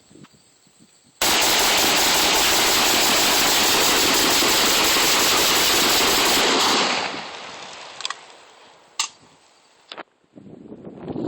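Rapid gunfire from a rifle, so loud that it overloads the microphone into one continuous distorted roar for about five seconds before trailing off. A few single sharp cracks or clicks follow near the end.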